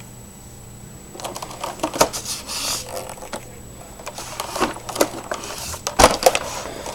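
Irregular clicking, knocking and rattling of hard plastic parts of an iRobot Roomba and its accessories being handled, starting about a second in.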